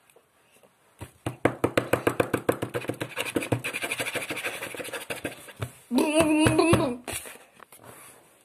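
A boy's voice making nonsense vocal noises: a fast pulsing run of about nine pulses a second that lasts roughly four seconds, then a held voiced tone about a second long with a wavering pitch.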